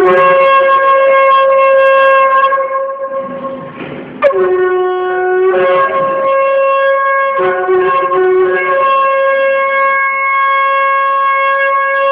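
A shofar blown in long held blasts. Each blast starts on a lower note and breaks upward to a higher note that is held for several seconds. There is a short break about three seconds in, then a fresh blast at about four seconds that again rises from the low note. The low note returns briefly near eight seconds.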